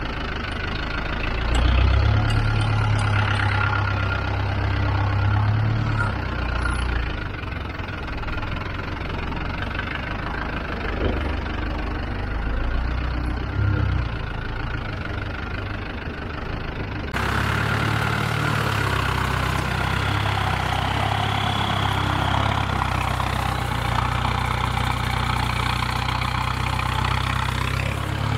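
Off-road 4x4's engine running at low, fairly steady revs, louder for a few seconds near the start. About two-thirds of the way through the sound changes abruptly, with more hiss over the engine, as at a cut to another shot.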